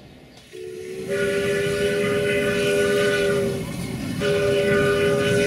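Steam locomotive's chime whistle blowing two long blasts, several notes sounding together, the first starting about half a second in and the second about four seconds in, over a steady rushing noise from the working locomotive.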